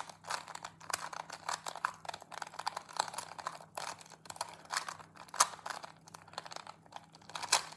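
2x2 Rubik's cube being turned quickly by hand: a fast, irregular run of small plastic clicks and clacks, several a second, as the layers are snapped round.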